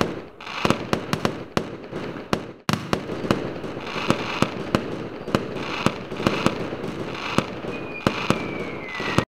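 Fireworks display: repeated sharp bangs of bursting shells over continuous crackling, with a thin whistle falling in pitch near the end. The sound cuts off suddenly.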